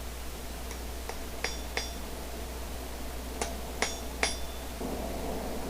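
Hammer strikes on hot steel bar on an anvil: about six light, ringing blows, spaced unevenly, as the round penny end of a flat-bar scroll is refined.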